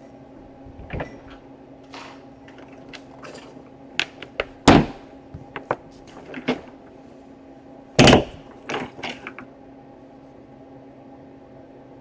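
Handling noises of a laptop power adapter and its cords being moved about and set on a table: scattered light clicks and rustles, with two sharper knocks about five and eight seconds in, over a steady low hum.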